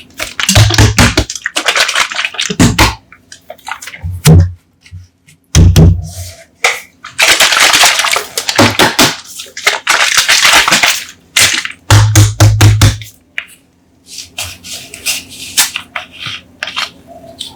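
Coca-Cola soda bottles handled and opened: sharp clicks, a few dull knocks, and several bursts of fizzing carbonation hiss lasting a second or two each.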